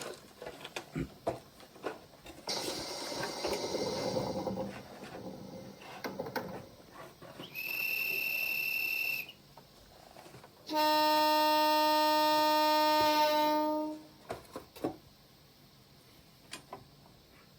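Simulated train sounds from a Kato Soundbox model-railway sound unit playing its JR East E231 series electric train sound set: scattered clicks and running noise, then a single high steady tone for about a second and a half, then a loud train horn blast lasting about three seconds.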